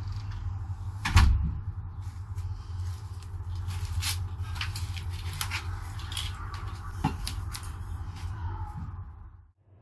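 Footsteps of sneakers on a balcony patio close to the microphone, with scattered clicks and knocks over a low steady rumble and one loud thump about a second in. The sound fades out just before the end.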